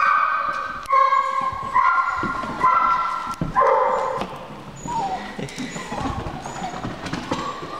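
Seven-week-old Airedale-cross puppies whining: about five high, drawn-out cries about a second apart, then fainter, falling whimpers in the second half.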